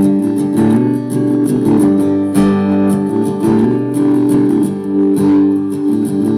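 Acoustic guitar strummed, chords ringing steadily with a regular strumming rhythm, played live through a venue PA.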